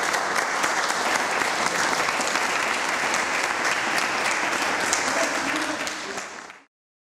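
An audience applauding: a roomful of people clapping steadily, cut off abruptly near the end.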